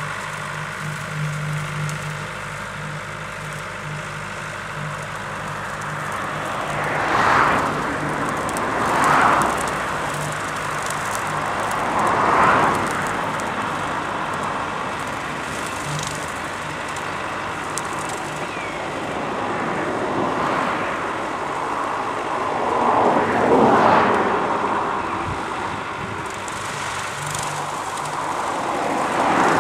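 Renault Ceres tractor's diesel engine running steadily under load while pulling a topper that cuts rushes. Several swells of rushing noise rise and fall over the engine's steady hum.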